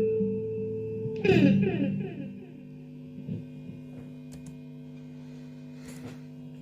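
Guitar playing a held chord, struck again about a second in and then left ringing and slowly dying away.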